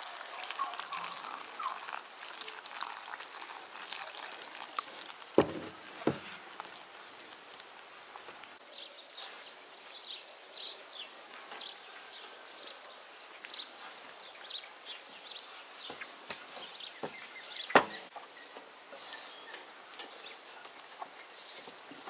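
Water poured into a glass bowl of flour and stirred in with a wooden spatula, then soft dough worked by hand in the bowl. A few sharp knocks come through, the loudest near the end.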